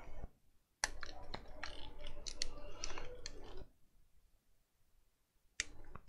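Plastic earcup housing of a pair of Logitech Bluetooth headphones being handled and fitted back together: a run of small clicks and rustles lasting about three seconds, then a single sharp click near the end.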